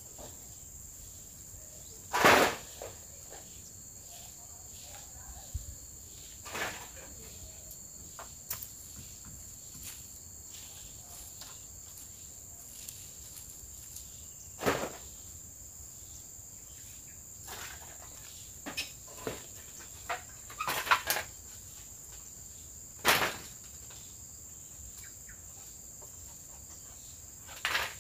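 Steady high-pitched insect chorus, with short knocks and clatters every few seconds, the loudest about two seconds in.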